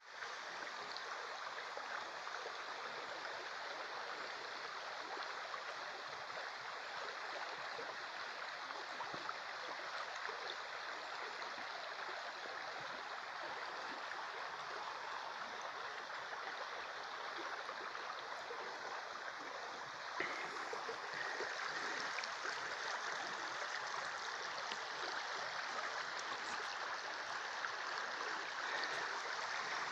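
Shallow river running over a stony riffle: a steady rush of flowing water. There is a short click about two-thirds of the way in, after which the rush is a little louder.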